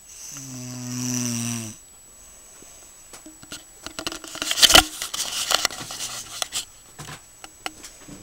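One long, buzzing snore lasting nearly two seconds. It is followed by scattered clicks and rustling, with a loud noisy burst about four and a half seconds in.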